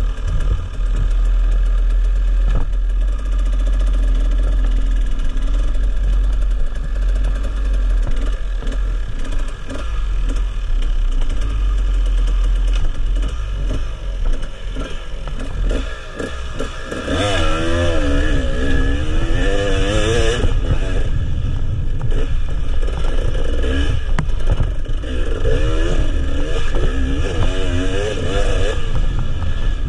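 Enduro motorcycle engine heard close up from the bike's onboard camera while it is ridden hard. The revs rise and fall in quick swings, most busily in the second half.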